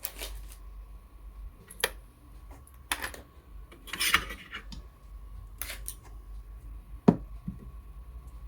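Laptop parts and small tools being handled during a RAM upgrade: a series of sharp clicks and short scrapes, about six in all, the loudest a sharp knock about seven seconds in. A faint steady high tone runs underneath.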